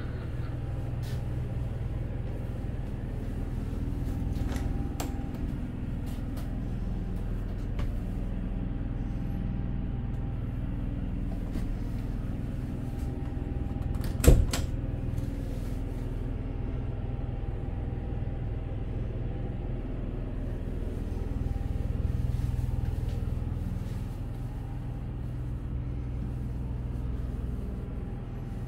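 Steady low hum of running machinery, with a few light clicks and one sharp click about fourteen seconds in.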